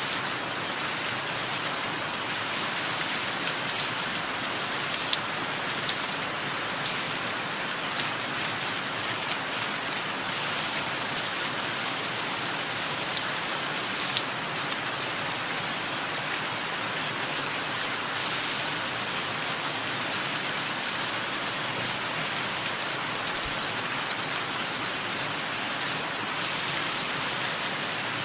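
Steady rain falling, with a bird repeatedly giving short, high chirps in quick twos and threes, one group about every three seconds.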